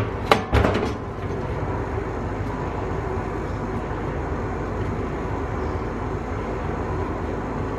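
A kitchen fan running with a steady rushing noise, with a few sharp metal knocks in the first second from the hot sheet pan of baked falafels being handled on the gas range grate.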